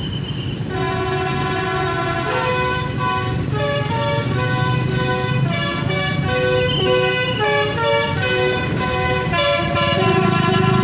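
Basuri V2 telolet horn, the Indonesian multi-trumpet melody horn, playing a tune of quick changing chord notes that starts under a second in, over a low rumble.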